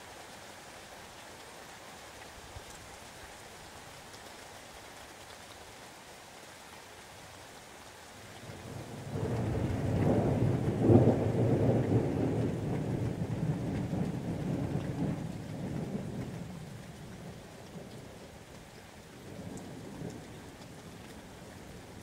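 Steady rain falling, then a long roll of thunder. It builds a little over a third of the way in, peaks, and rumbles away over several seconds, with a smaller rumble near the end.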